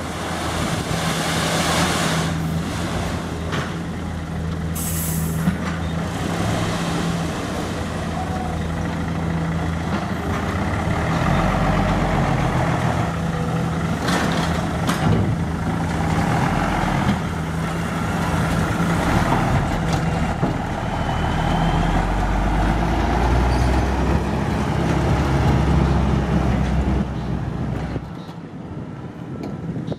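Hino dump truck's diesel engine running steadily, with a short hiss of air about five seconds in. From about eleven seconds the engine note deepens and grows louder as the truck moves off.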